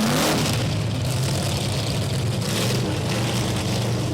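Monster truck engine revving briefly near the start, its pitch rising, then running steadily at a low, even pitch.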